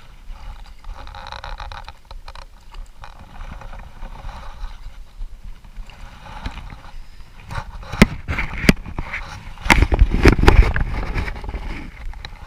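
Water splashing and sloshing as a hooked brown trout is drawn in and scooped into a landing net, with sharp clicks and knocks from handling. The splashing is loudest about ten seconds in.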